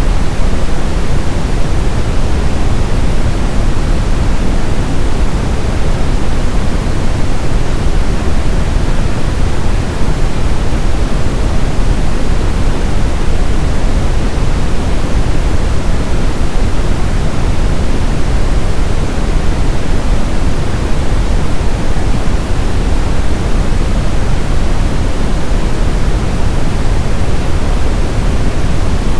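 Steady synthesized brown noise: a loud, even, deep rush with most of its energy in the low end, unchanging throughout.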